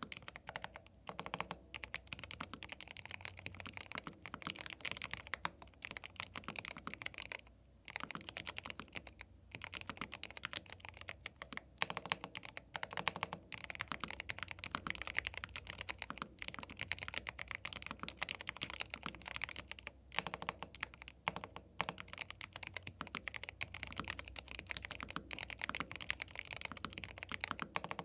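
Fast typing on a YUNZII B75 Pro gasket-mount 75% mechanical keyboard with Milk linear switches: a dense, steady run of keystrokes with a couple of brief pauses.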